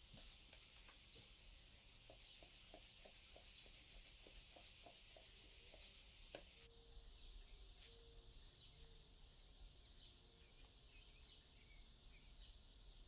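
Faint rubbing of a wooden rolling pin over pastry dough on a floured countertop, with light soft knocks in the first half; otherwise near silence with a faint hiss.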